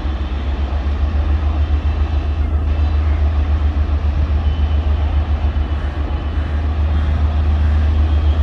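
Two Indian Railways diesel locomotives working in multiple, their engines running with a deep, throbbing rumble as they haul a train away from the station.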